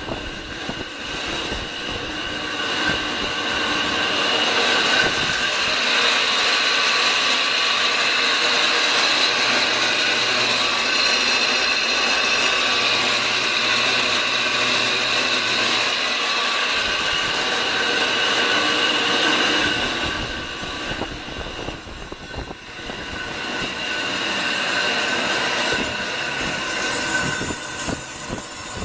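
Hobart meat slicer running: its electric motor and spinning blade give a steady whine with several high tones. It is running smoothly.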